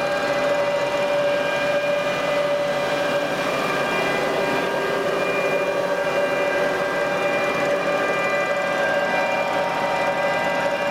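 SEIK DP-K-50 6-tonne long-distance forestry cable winch running: a steady mechanical whine with several held tones over an even machine hum.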